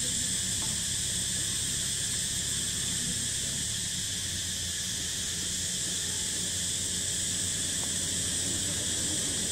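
Steady, unbroken high-pitched chorus of insects, with a low steady hum underneath.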